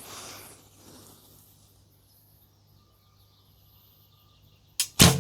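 Recurve bow shot: a click from the metal draw clicker near the end, at once followed by the loud snap of the string on release from the wooden Nik'a S2 Windstorm limbs, then a short thud about a third of a second later as the arrow strikes the target.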